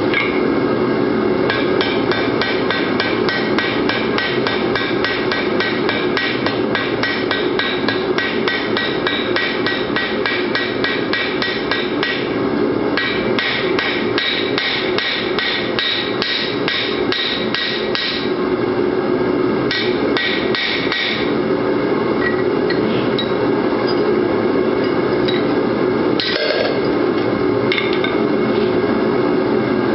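Hand hammer striking hot rivet stock in a steel rivet-header die on an anvil: a fast, even run of steel-on-steel blows, several a second, through the first half, then shorter runs and single blows as the headed rivets are punched out through the die.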